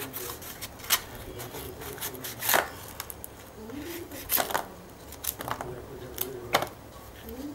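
A small kitchen knife cutting through the firm flesh and fibrous husk of a palmyra palm fruit, making a handful of short, crisp cutting sounds a second or so apart.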